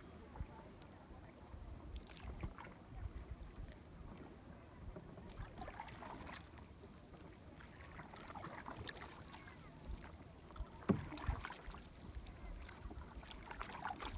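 A canoe paddle dipping and swishing through calm lake water in slow, irregular strokes, with soft water sounds along the hull and a single knock a little past the middle.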